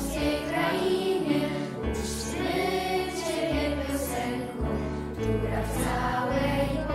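Choir singing a song over instrumental accompaniment, with held low notes that change every second or so.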